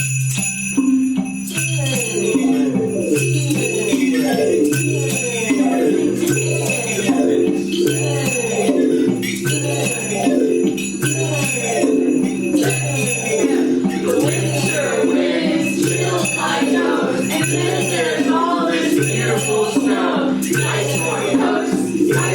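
A classroom ensemble playing a repeating ostinato: low mallet-instrument notes in an even pattern about once a second, with jingle bells ringing and shakers rattling over it.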